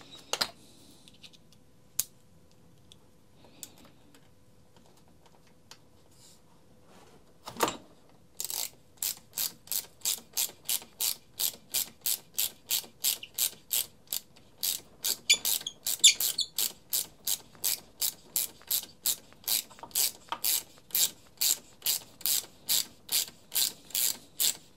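Small hand ratchet wrench clicking as it is worked back and forth on the bolt of a cordless trimmer's guard clamp. A few separate knocks come first. From about a third of the way in there is a steady run of sharp clicks, two or three a second.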